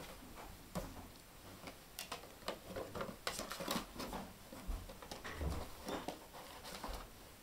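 Ten-week-old Jack Russell puppy playing with a small cardboard box on carpet: irregular light taps, scrapes and rustles as the box is shoved and nosed about, with a few dull thumps past the middle.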